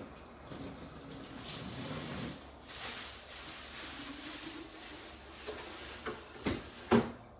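Water running steadily from a kitchen tap, then two sharp knocks near the end, the second the louder.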